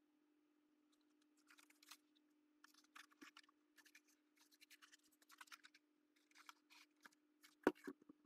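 Faint scratching and rustling of a cardboard helmet being handled, over a steady faint hum, with two knocks near the end as the cardboard is set down on the table.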